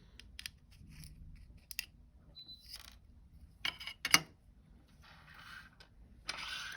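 Light clicks and scrapes of the small plastic parts of a DAE CO-10 counter being handled and taken apart, with two sharper clicks about four seconds in and a short scrape near the end.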